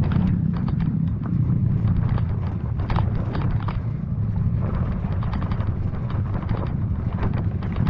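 Dirt bike engine running steadily while riding a rough trail, with frequent short clicks and rattles over the top.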